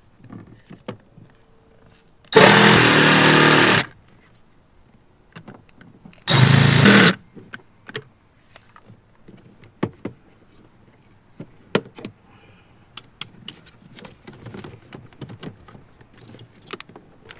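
A small power tool cuts plastic trim in two short bursts, the first about a second and a half long and the second shorter. After that come scattered clicks and knocks of plastic parts being handled and fitted.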